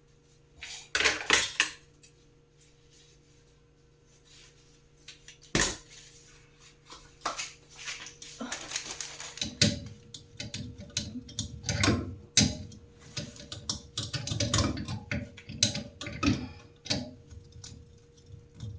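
Clicks, knocks and clatter of kitchen range hood parts being handled and fitted, with one sharp knock about a third of the way in and busier clatter through the second half. A faint steady hum runs beneath.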